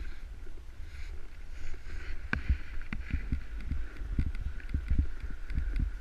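Snowboard sliding and scraping over snow, with wind rumbling on a body-worn camera's microphone and irregular knocks and thumps from the board and rider.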